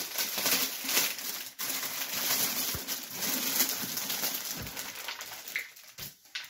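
Clear cellophane wrapping around a chocolate Easter basket crinkling and rustling as it is handled. It fades out near the end.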